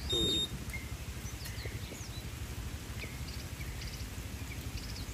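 Outdoor farm ambience: a steady low rumble with many faint, short bird chirps scattered throughout. A brief high beep-like whistle sounds right at the start.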